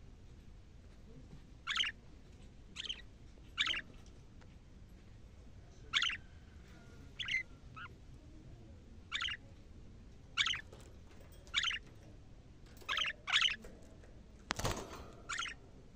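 Budgerigars giving short, high chirps, about a dozen spaced unevenly, with a single low thump near the end.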